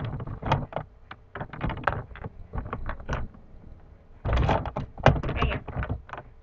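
Irregular clicks, knocks and clattering of hands rummaging through small plastic toy figures, loudest about four to five seconds in.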